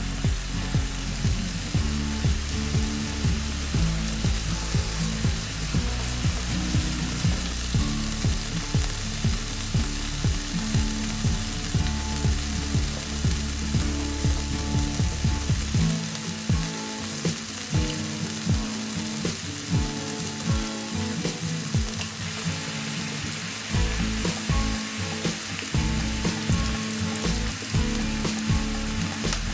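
Chopped onions frying with butter in a non-stick frying pan: a steady sizzle.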